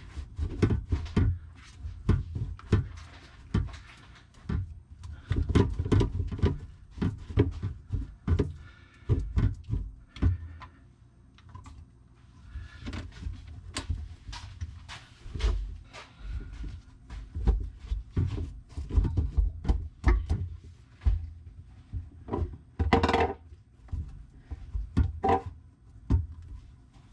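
Irregular knocks, thumps and clatter of hands and tools handling the garbage disposal and plumbing in a cramped under-sink cabinet, with one louder, sharper clatter near the end.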